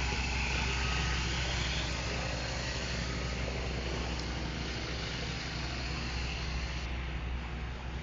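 An engine running steadily at a low, even hum, over a wash of steady outdoor noise.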